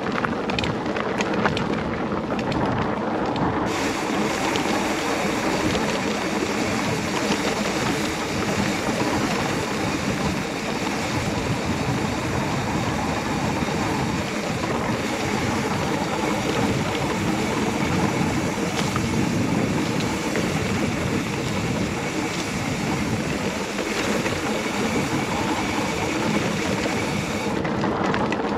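Mountain bike rolling along a dirt and gravel trail: steady tyre rumble with small clicks and rattles from the bike. The sound turns hissier about four seconds in.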